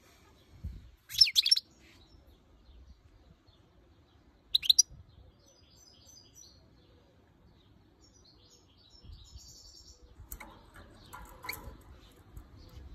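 Female European goldfinch giving short, sharp calls, agitated by the camera held close to her cage. A loud cluster of calls comes about a second in and a shorter burst near five seconds, then fainter twittering and scattered chirps toward the end.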